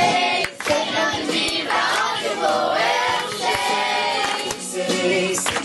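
A Christian camp theme song in Portuguese: a group singing along with musical accompaniment.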